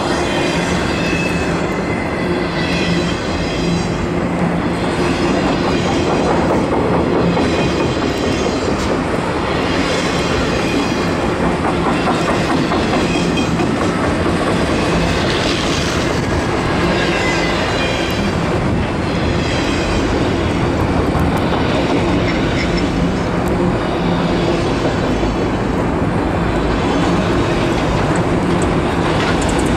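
Freight train of multilevel autorack cars rolling past: a steady loud rumble of steel wheels on rail, with clickety-clack coming in repeating groups as the cars go by.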